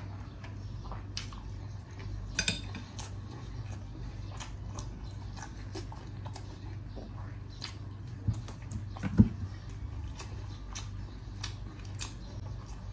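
Eating at a table: scattered light clicks of utensils against a dish, with chewing, over a steady low hum. A sharper knock comes about two and a half seconds in, and a louder thump just past nine seconds.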